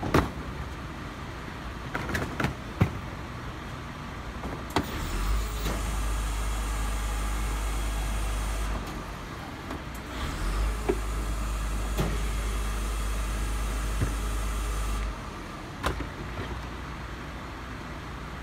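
Garbage truck at work: its hydraulics run twice as a steady heavy hum lasting about four seconds each time, with metal clanks and knocks in between.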